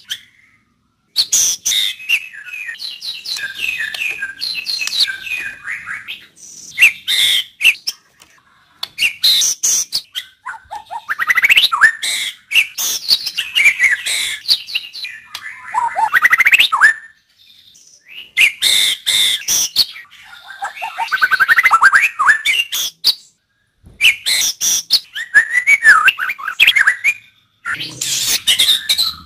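White-rumped shama (murai batu) singing loud, varied phrases of whistles and rapid chattering notes, each a few seconds long, broken by brief pauses: song used as a lure to provoke a young shama into singing.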